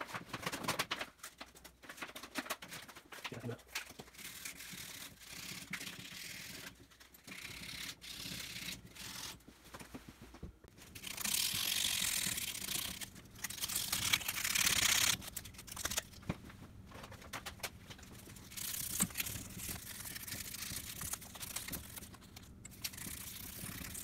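Hands working on a kids' mountain bike's rear V-brake and cable: scattered small metal clicks and rattles, with a long stretch of brisk scrubbing around the middle and a shorter one later, as surface rust is cleaned off.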